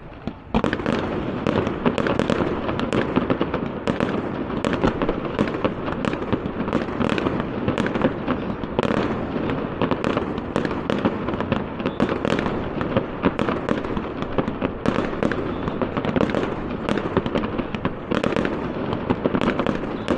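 Fireworks display: a sudden start about half a second in, then a dense, continuous barrage of sharp bangs over a steady wash of noise.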